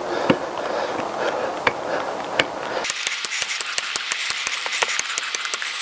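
Metal parts being handled, with a few light clicks, as a new wheel bearing is worked into a motorcycle sprocket carrier. About halfway through this gives way to a fast, irregular run of sharp metallic clicks, like a ratchet.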